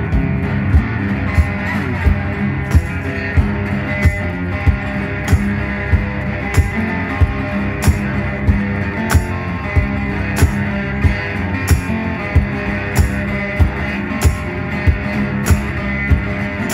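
Resonator guitar played in an instrumental break, with a steady sharp thump keeping the beat, about three every two seconds.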